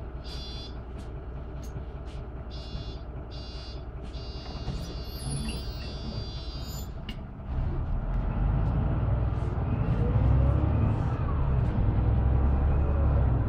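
Mercedes-Benz Conecto LF city bus heard from inside: its OM926LA six-cylinder diesel idles while the door warning buzzer beeps repeatedly. This is the doors closing at a stop. Just past halfway there is a thump, and the engine gets much louder with a faint rising whine as the bus pulls away through its ZF automatic gearbox.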